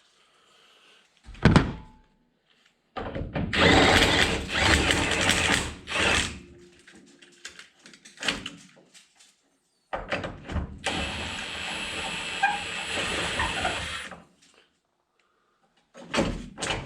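Mechanic's tools and metal truck parts clanking, scraping and knocking during disassembly, with a thump about a second and a half in, a long rough rattling stretch, and another steadier stretch of noise later on.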